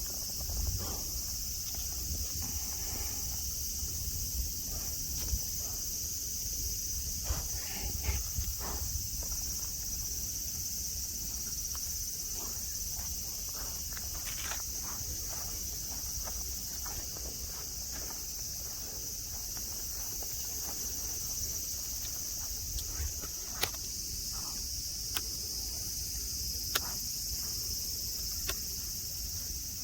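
Cicadas singing in a steady, high, continuous chorus, with scattered short clicks and ticks over it.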